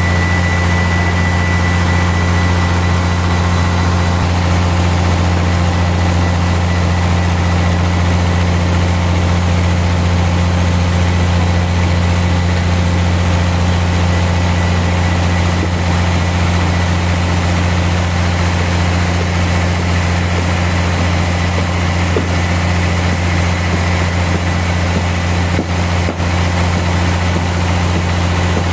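Sawmill machinery running with a steady low drone and a faint, constant high whine.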